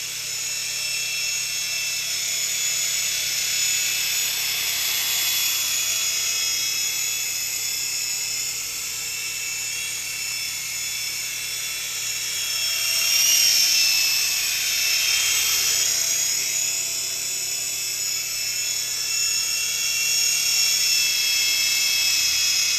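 Syma S5 mini RC helicopter in flight, its small electric motors and rotors giving a high-pitched whine. The whine wanders in pitch as the throttle and rudder change, and grows louder about halfway through.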